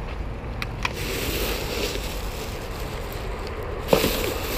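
A baby buggy loaded with rubbish bags being pushed along a tarmac path: a steady rumble of its wheels and rattling frame, with a couple of small clicks early and a knock about four seconds in.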